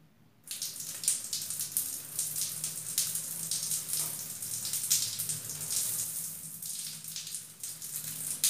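Water spraying from a homemade PVC-pipe rain shower head and pattering down in a tiled bathroom, a steady flickering hiss that starts about half a second in.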